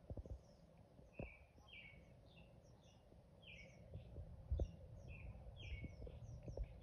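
Small birds chirping in quick, repeated short calls in the background, over a low rumble, with a few soft knocks, the loudest about four and a half seconds in.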